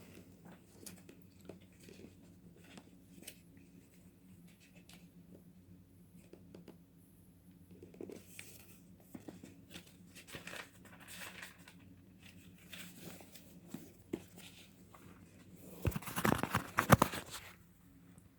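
Paper pages rustling as a book is leafed through to find a passage: faint scattered rustles and soft ticks, with a louder, longer rustle of pages near the end.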